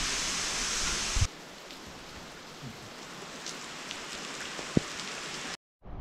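Waterfall spray falling like heavy rain onto rock and foliage, a steady dense hiss. About a second in it drops abruptly to a softer hiss. Near the end there is one sharp tap, then the sound cuts out for a moment.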